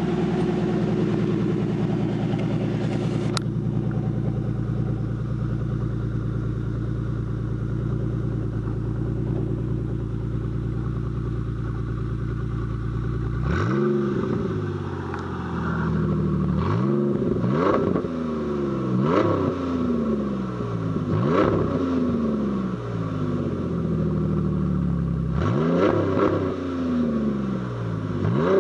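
2007 Ford Mustang's 4.0-litre V6 running through straight pipes cut off just after the catalytic converters. It idles steadily, then from about halfway it is revved several times, each rev rising sharply and falling back to idle.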